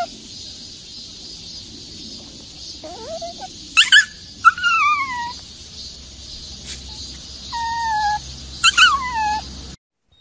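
Small white fluffy dog whining in a handful of short high-pitched calls, each sliding down in pitch, from about three seconds in.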